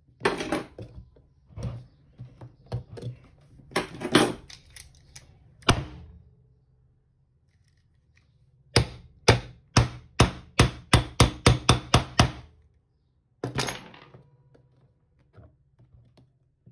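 Sharp knocks and clatter of tools on a hoverboard hub-motor wheel as its plastic side cover is worked loose. In the middle there is a run of about ten sharp, evenly spaced knocks, about three a second.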